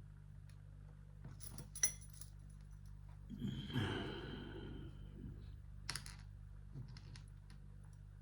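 Small metal padlock parts clicking and tapping as a pin-tumbler padlock is taken apart, with a few sharp clicks and a short metallic scrape about halfway through.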